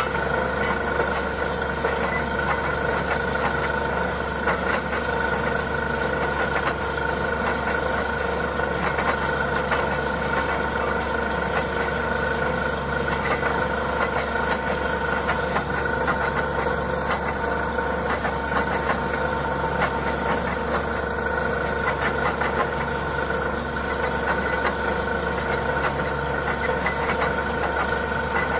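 Truck-mounted borewell drilling rig running steadily, its engine droning with a few constant tones, while air and water blow out of the borehole.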